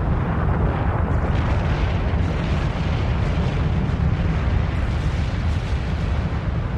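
Erupting volcano's lava fountain: a steady, deep rushing noise with no separate blasts.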